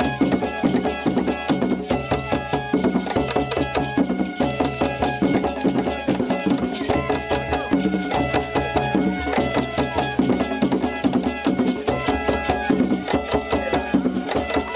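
Upbeat music with a steady percussion beat under a repeating melody of held notes.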